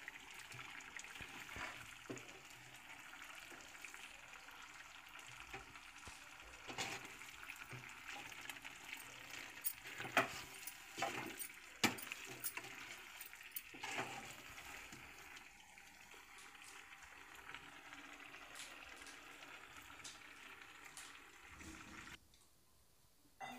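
Chicken pieces in masala sizzling in a metal kadai while a steel ladle stirs them, scraping and clinking against the pan several times, most sharply around ten to twelve seconds in. The sizzling cuts off suddenly near the end.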